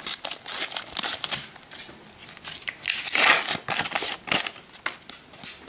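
Foil wrapper of a Panini sticker packet being torn open and crinkled by hand: crackly rustling in two bouts, the first in the opening second or so and the second from about three seconds in.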